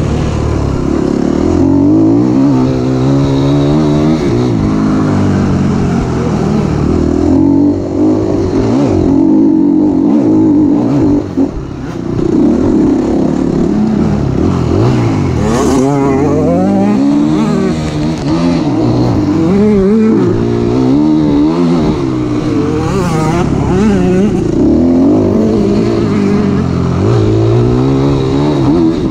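Classic enduro motorcycle engine heard up close from the bike, revving up and down continuously as it is ridden hard over grass and dirt, with brief drops in throttle about eight and eleven seconds in.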